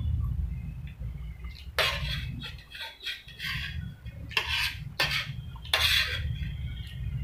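Metal spoon scraping and clinking on a stainless steel plate as fried rice is scooped up, about four strokes, over a steady low hum.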